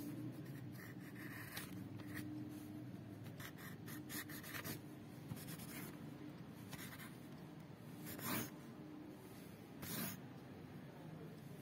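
Marker tip scratching across paper in short strokes, with a few louder strokes about four and a half, eight and ten seconds in, over a faint steady low hum.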